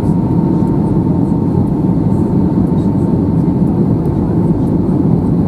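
Steady roar of an Airbus A320-214's CFM56 engines and rushing air, heard inside the passenger cabin on the approach to landing, with a faint steady whine above it.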